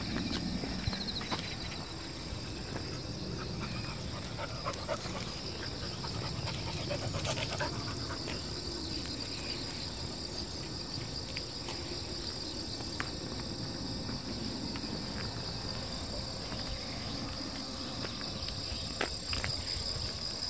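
A steady high chorus of insects trilling, with a dog panting as it walks on a leash and scattered light steps and clicks on the paved path.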